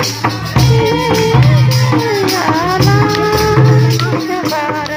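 Music with a singing voice holding long, gliding notes over a steady drum beat and shaken percussion.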